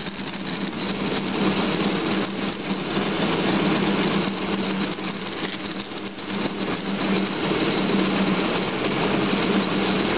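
Benchtop milling machine running, its end mill rough-cutting a cast-iron blank: a steady motor hum under the even noise of the cut.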